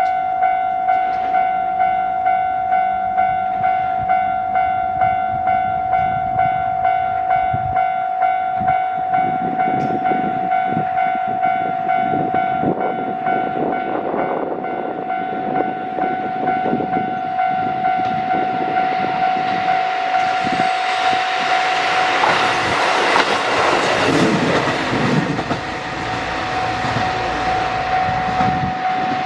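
Japanese level-crossing warning bell ringing in a steady, evenly repeating ding that stops near the end. Meanwhile a Kyoto Tango Railway train approaches and runs past with rising wheel and rail noise, loudest about two-thirds of the way in.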